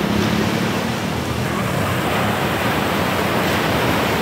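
Ocean surf breaking and washing up a sandy beach: a steady rush of noise.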